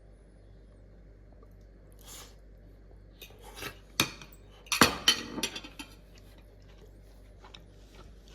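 Cutlery clinking and scraping against a dish: a faint scrape, a few sharp clicks, then a quick run of clinks about five seconds in, as a portion of the food is served out.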